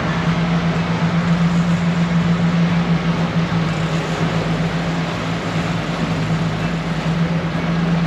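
A fishing boat's engine running steadily under way: a constant low drone with the rush of wind and the churning wake over it.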